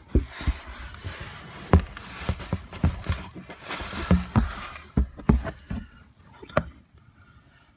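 Handling noise on a phone microphone: rustling with a run of dull thumps and knocks that dies down after about six and a half seconds.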